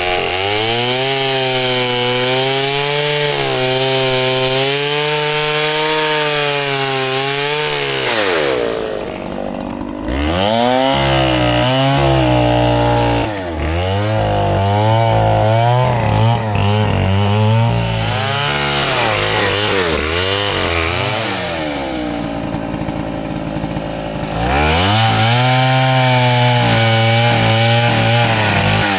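Two-stroke chainsaw cutting wood, its engine pitch wavering under load. It eases off twice, around nine seconds and around twenty-two seconds in, then revs back up to cutting speed.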